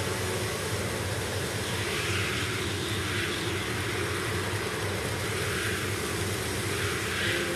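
Dark ambient synth music in a noisy drone passage: a steady low hum under hiss that swells up and down slowly every second or two, with the held melodic notes dropped out. Near the end a sustained note comes back in.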